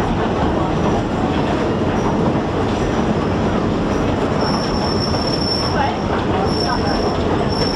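Passenger train rolling along the track with a steady rumble. From about halfway through, a high-pitched squeal of steel wheels on the rails comes and goes several times.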